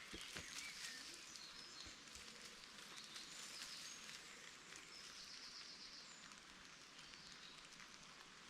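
Faint birdsong: several short high chirps and a quick trill about five seconds in, over quiet outdoor background, with a few soft clicks near the start.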